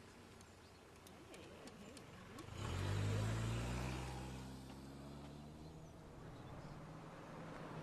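A car engine comes in loud about two and a half seconds in, its note sinking slowly in pitch and fading as the car slows, with a few light clicks before it.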